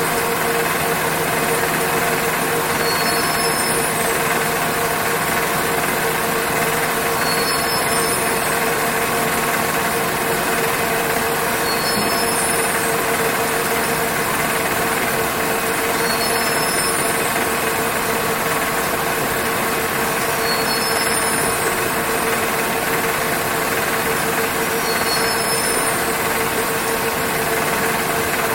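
Textile warping machine running steadily: a constant mechanical hum with a steady tone in it, and a short high chirp that recurs about every four seconds.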